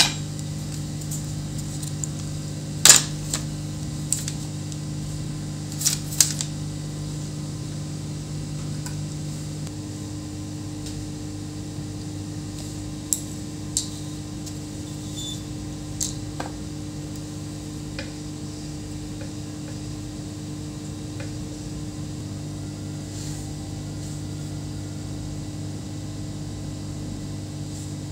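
A steady low hum, with a few sharp clicks and taps of metal multimeter probe tips touching the components and pads of a circuit board, the loudest two about three and six seconds in.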